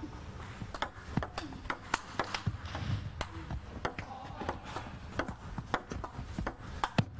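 Table tennis ball clicking against rackets and the table, many sharp clicks at an uneven pace, over a low hall hum.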